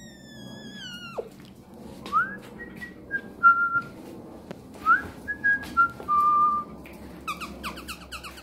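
Dog whining: a long high whine that slides slowly down and then drops sharply about a second in, followed by several short whines that rise and hold, and a quick run of short whimpers near the end.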